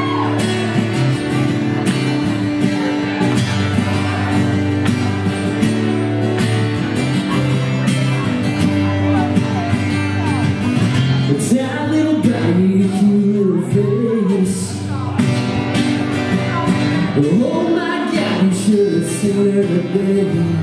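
Two acoustic guitars strumming a steady country-song intro, with a man's voice singing over them from about halfway through.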